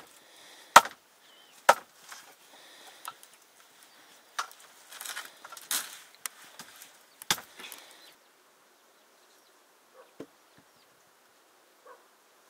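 Chopping with a blade into wood: two hard strikes about a second apart, then lighter, irregular knocks with some scraping, stopping about eight seconds in.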